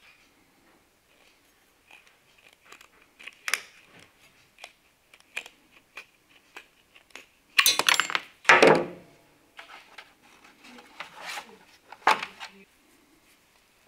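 Hand snips cutting thin sheet metal: a scattered series of short metallic snips and clicks, with a louder burst of handling noise around eight seconds in and another sharp snap near the end.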